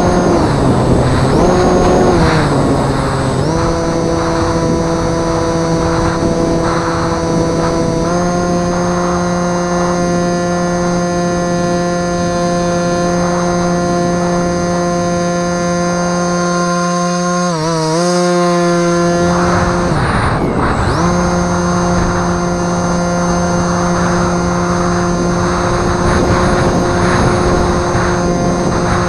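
Electric brushless motor and propeller of a Bixler 2 RC plane running with a steady whine, its pitch stepping up and down with throttle changes and cutting out briefly about two-thirds of the way through. Gusty wind rumbles on the microphone throughout.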